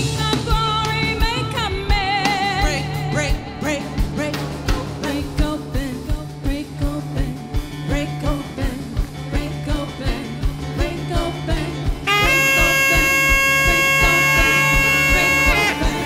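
Live worship band music: drums keeping a steady beat over a bass line, with a wavering singing voice in the first few seconds. About twelve seconds in, a long held note with many overtones sounds over the band and stops just before the end.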